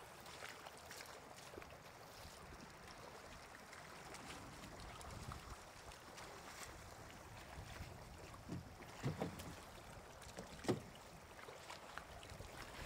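Faint sloshing and light splashing of water, with a few louder splashes in the second half, the last and loudest near the end.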